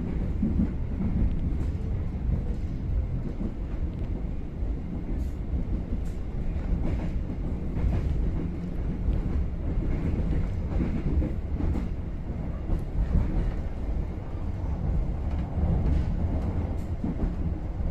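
Steady rumble of a moving passenger train heard from inside a coach, with faint clicks scattered through it.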